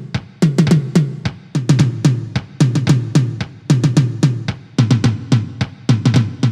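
Millenium MPS-150 electronic drum kit's sampled drum sounds, heard from the sound module's line output rather than the pads: quick groups of three to five hits, about one group a second, with bass drum and snare-like strikes and short ringing after each hit.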